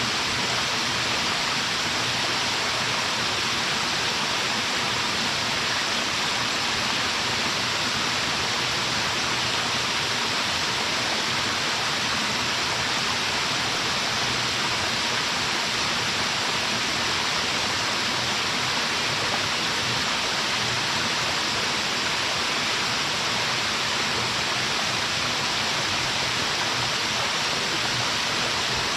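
Waterfall crashing steadily, a constant, even rush of falling water with the most energy in the hiss range.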